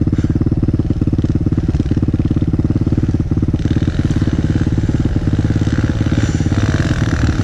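Single-cylinder four-stroke engine of a Kawasaki KLX pit bike running close by at a steady idle, a fast, even pulsing. About halfway through, a second, higher engine sound comes in, rising and falling near the end.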